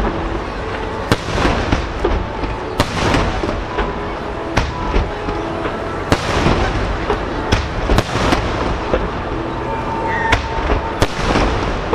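Aerial firework shells of a starmine display bursting in quick succession, about one sharp bang a second, each followed by a rolling echo off the surrounding basin.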